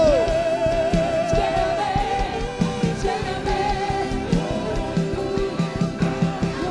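Live worship band playing, with singing over a steady drum beat and held chords.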